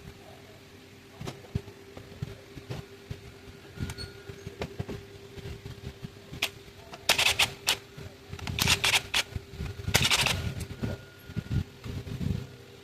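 Hand tools clicking and clinking on metal while the engine's thermostat pipes are being removed: scattered single clicks, then three short runs of rapid clicking about seven, nine and ten seconds in. A faint steady hum runs underneath.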